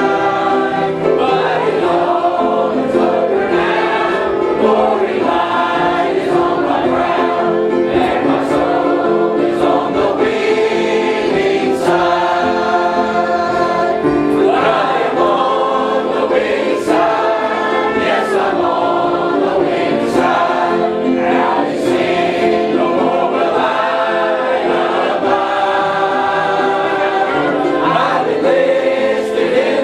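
A church congregation singing a gospel hymn together, many voices continuous throughout.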